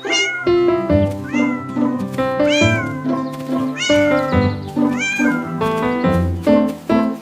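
Cat meows, about five, evenly spaced over a background music track with piano-like notes; each meow rises and then falls in pitch.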